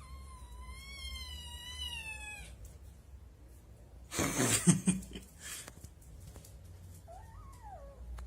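A cat giving one long, wavering meow, then a short, loud, noisy burst about four seconds in, and a shorter meow that rises and falls near the end.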